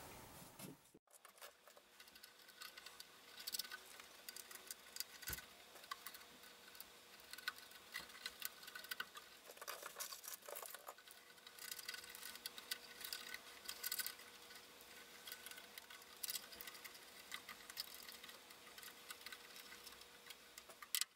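Faint, scattered small clicks and taps of hardware and hands working a circuit board into a metal amplifier chassis, over a faint steady tone.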